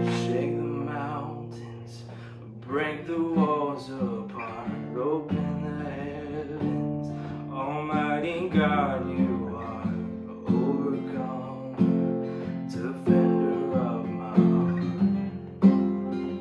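Acoustic guitar strummed and picked, with sharp strums every few seconds, as a man sings a slow worship song over it in short phrases.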